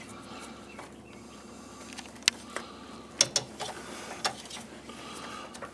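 Ratchet and socket loosening a 10 mm cooling-fan mounting bolt: a handful of scattered metallic clicks and clinks, the sharpest about two and three seconds in.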